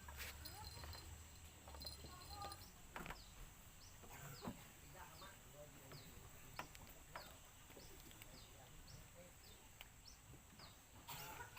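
Faint, repeated short high chirps from a small bird, falling in pitch, about one to two a second, over quiet outdoor background with an occasional soft knock.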